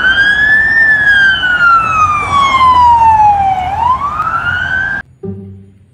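Police siren wailing in a slow rise and fall of pitch: up, a long sweep down, then up again, cutting off abruptly about five seconds in.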